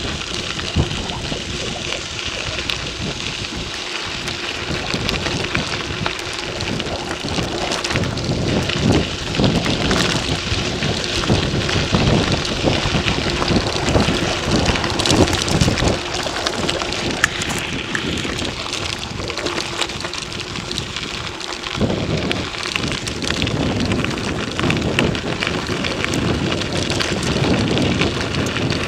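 Mountain bike riding fast over a loose gravel track: a dense, steady crackle and rattle of the tyres on stones and the bike shaking, with wind noise on the microphone.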